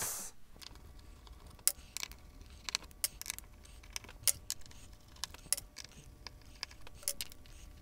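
Scattered light clicks and ticks of a hand screwdriver working a self-tapping screw out of a particle-board panel, irregular and spaced out.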